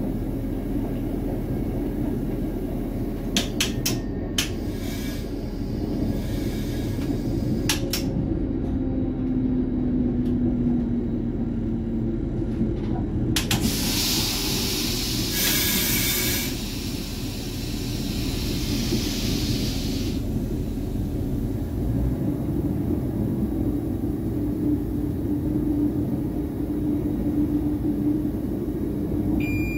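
RA2 diesel train running along the line, heard from the driver's cab: a steady low rumble of engine and wheels on the rails. A few sharp clicks come about four and eight seconds in, and a hiss lasts several seconds from about halfway through.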